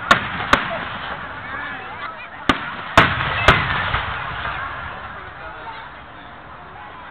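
Aerial fireworks shells bursting in sharp bangs: two close together at the start, then three about half a second apart around three seconds in, the middle one the loudest. A crowd's voices run underneath.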